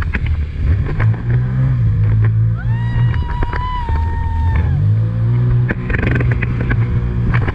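Jet ski engine running hard, its note rising about a second in and again about five seconds in, with the hull knocking and splashing over the waves. In the middle a woman lets out one long, high, held shout of about two seconds.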